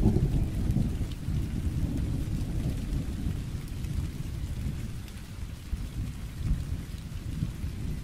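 Thunderstorm: low rolling thunder rumbling over steady rain. The thunder is loudest at the start, eases off around the middle and builds again near the end.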